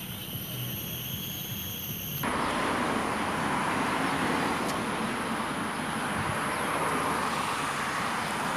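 Steady outdoor background noise with no single clear source; about two seconds in it changes abruptly to a louder, even hiss.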